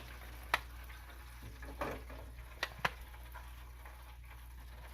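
Chicken strips frying in hot oil, a faint steady sizzle, with a few short sharp clicks.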